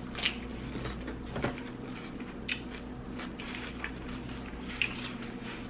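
Close-miked eating sounds: chewing with a handful of short wet mouth clicks and smacks, spaced about a second apart, over a steady low hum.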